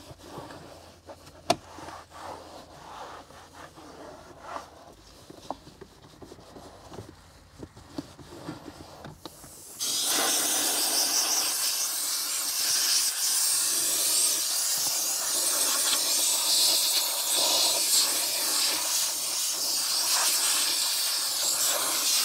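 Soft rubbing and small clicks of a towel and brush working the centre console, then about ten seconds in a compressed-air blow gun starts with a sudden, loud, steady hiss, blowing cleaning product out of the tight gaps around the gear shifter.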